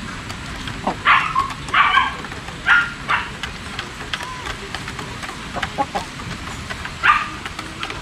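Rhode Island Red chickens clucking in a few short, loud calls, about five in all, as they feed together.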